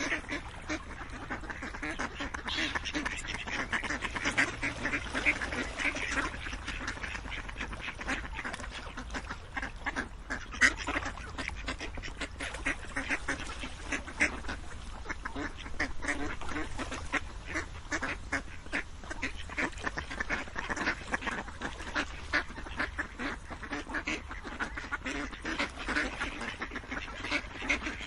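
A flock of ducks quacking without pause, many short calls overlapping one another.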